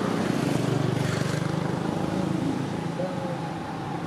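An engine running steadily, a continuous low pulsing hum.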